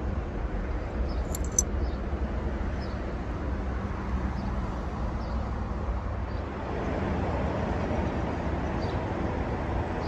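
Fox-body Ford Mustang's engine idling steadily as a low rumble, with a short jingle of keys about a second and a half in. The sound grows a little fuller about six and a half seconds in.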